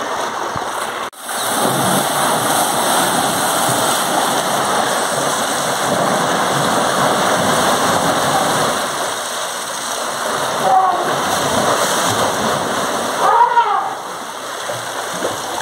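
Water rushing and splashing steadily as a hose jet sprays over an elephant standing in a bathing tank. Short voice-like calls sound twice near the end.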